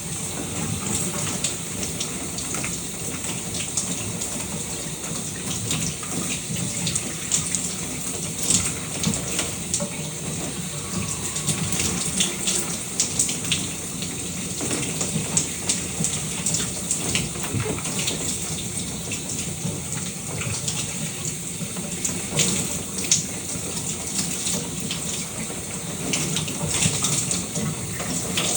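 Shower running steadily, a constant hiss of falling water with irregular small splashes and spatters.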